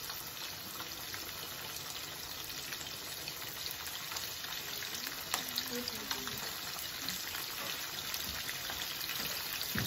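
Chopped poblano peppers sizzling steadily as they fry in hot grease in a skillet.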